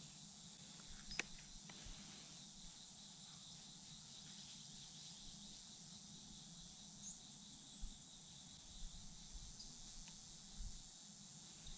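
Faint, steady chorus of field insects in a quiet field, with one small click about a second in.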